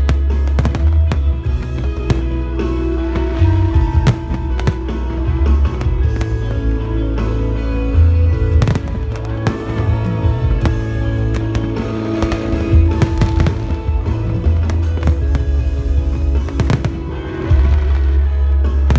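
Aerial firework shells bursting again and again in quick, irregular succession, with crackling, over loud music with a heavy bass.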